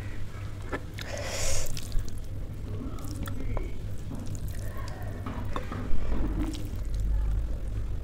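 A metal fork working through saucy Maggi instant noodles on a plate: wet squishing of the sauce-coated noodles, with a few sharp clinks of the fork against the plate, over a steady low hum.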